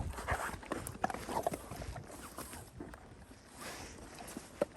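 Footsteps walking along a rough track: irregular short crunching knocks.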